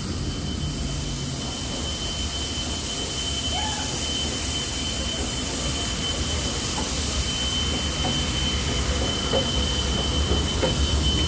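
Steam locomotive at rest with steam hissing steadily over a low rumble, and a thin, steady high tone held above it.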